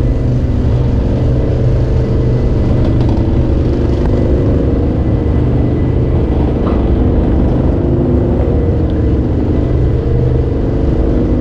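Spinning teacup amusement ride running: a steady, loud low rumble and hum from the ride's drive machinery that holds an even level throughout.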